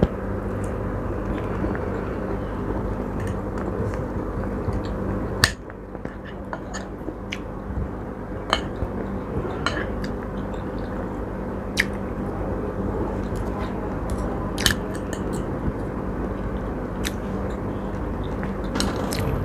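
A person chewing and biting chicken steak close to the microphone, with scattered sharp clicks such as cutlery on a plate, over a steady background hum.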